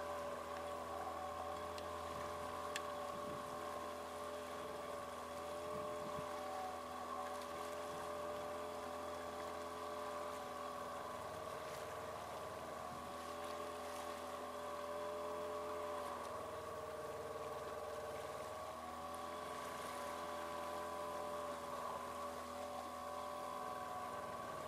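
Trailer sailer's outboard motor running steadily under way, with a little pitch change about two-thirds of the way through, over the hiss of water along the hull.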